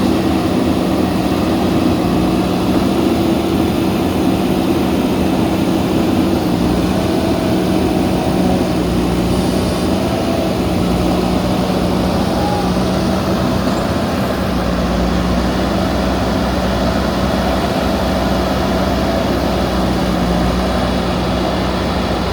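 JCB backhoe loader's diesel engine running steadily with a constant hum.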